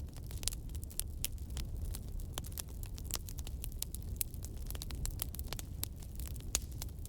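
Wood fire crackling: dense, irregular sharp pops and snaps over a steady low rumble of burning.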